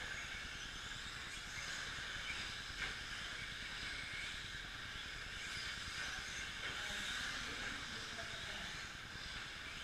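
Several 2WD short course RC trucks racing on a dirt track: a steady high hiss of their electric motors and tyres, with a faint tick about three seconds in.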